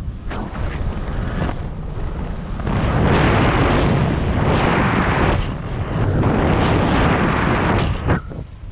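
Wind noise from airflow buffeting the microphone of a harness-mounted camera on a paraglider in flight, gusting and growing louder about three seconds in, then easing near the end.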